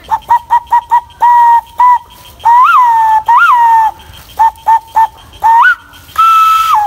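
A person whistling a dove-like signal call: a run of quick short pips, then longer held notes with brief upward swoops, more short pips, and a higher held note near the end.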